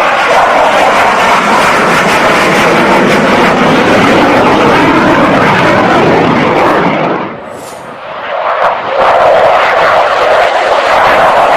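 Fighter jet sound effect: loud jet engine noise with gliding pitch as if passing by. It fades to a lull about seven seconds in, then builds up again a second later.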